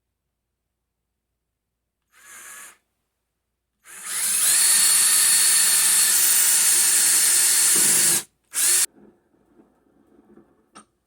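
Power drill boring a pilot hole into wood: a short blip of the trigger, then the drill spins up and runs steadily for about four seconds. It stops, then gives one more short burst.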